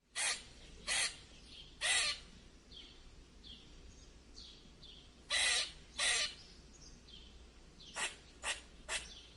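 A bird giving a series of short, harsh caws: three about a second apart, a pause, a pair, then three quicker ones near the end. Fainter short chirps sound between them.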